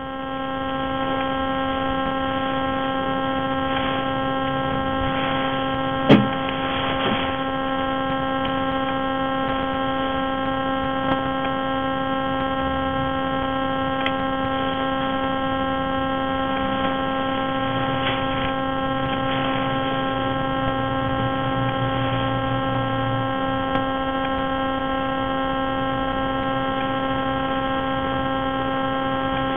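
Steady electrical hum with a stack of evenly spaced overtones, running unchanged throughout, with a single sharp knock about six seconds in.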